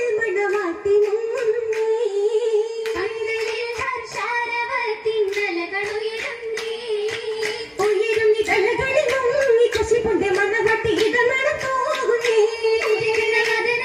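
Girls' voices singing a folk song together into microphones, over a steady beat of rhythmic hand claps from the dancers.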